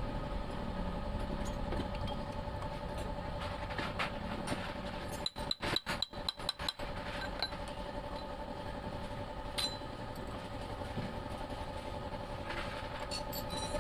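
Light metal clicks and taps of hand tools on a motorcycle cylinder head during valve seal fitting, with a quick run of taps about five seconds in as a metal tube is pressed down over a valve stem. A steady engine hum runs underneath.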